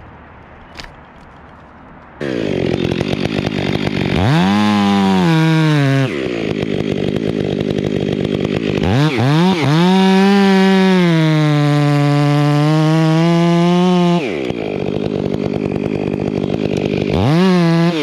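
A chainsaw starts up about two seconds in, idles, and is revved up several times: a short rev, then a long rev of about five seconds whose pitch dips and recovers, then idle, and another rev near the end.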